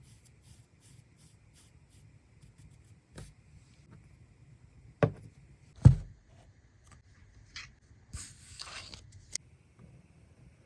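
Kinetic sand being worked: faint soft ticks, then two dull thumps about five and six seconds in, and a short crumbly scrape near the end, closed by a sharp click.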